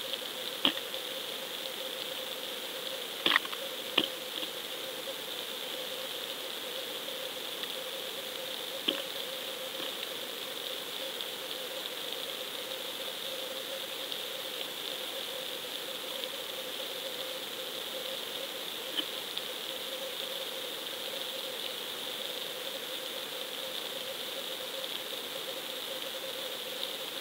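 Steady underwater hiss picked up by a camera sealed in a waterproof housing on a fishing rig deep in the sea, with a few sharp clicks and knocks, mostly in the first ten seconds.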